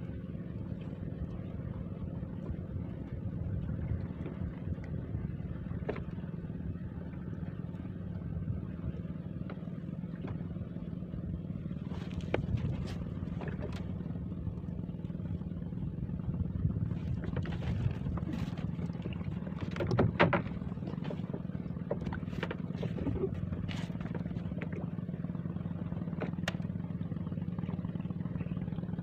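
Small fishing boat's engine running steadily at trolling speed, a constant low drone. A scatter of sharp clicks and knocks in the boat comes in the second half, the loudest about two-thirds of the way through.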